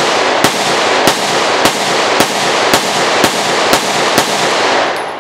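Taylor's & Company compact 9mm 1911 pistol firing a string of eight shots at a steady pace of about two a second, with echo filling the gaps between them. It is shooting hot Buffalo Bore +P+ 115-grain loads.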